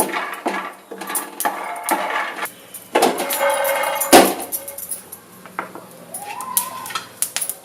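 Peanuts being dry-roasted in a pan, rattling and scraping under a stirring spatula, with irregular clicks and knocks.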